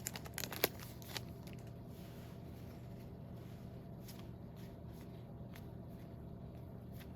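Football trading cards being handled and slid past one another as a fresh pack is sorted through. There are a few sharp clicks in the first second or so, then faint scattered card ticks over a low steady hum.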